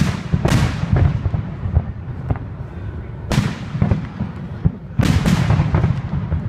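Fireworks display: aerial shells bursting with sharp bangs near the start, about half a second in, around three seconds and twice around five seconds, over a continuous low rumble of booms.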